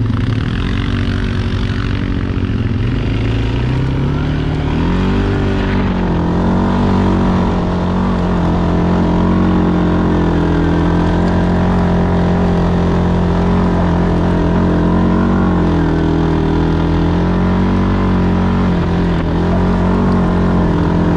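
ATV engine running under way, its pitch climbing about four seconds in as the quad speeds up, then holding fairly steady with small dips as the throttle eases and picks up again.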